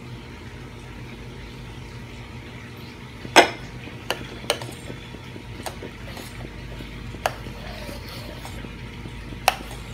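A ladle stirring simmering tomato sauce in a stainless steel saucepan, knocking against the pot's side now and then. There is a louder clank about three seconds in as the pot's lid comes off, all over a steady low hum.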